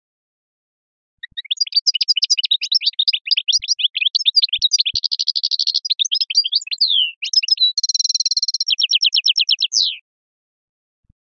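A songbird singing one long, rapid, varied phrase of high twittering notes, trills and buzzy held notes in the 'sharqi' song style. It starts about a second in, has a buzzy stretch in the middle, and ends with a falling note shortly before the end.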